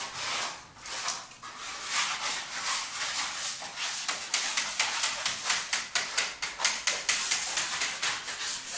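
Hand scraping of a plastered wall, with quick rasping strokes that come faster and sharper from about halfway through, roughly three or four a second: old paint and damp plaster being scraped off to prepare the wall for putty.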